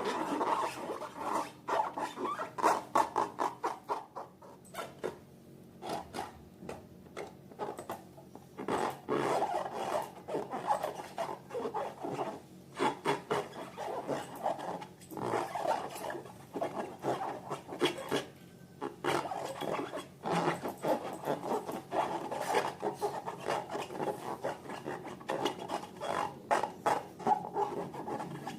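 Slime being squeezed and stretched by hand, giving rapid, irregular sticky clicks and crackles with short pauses between handfuls.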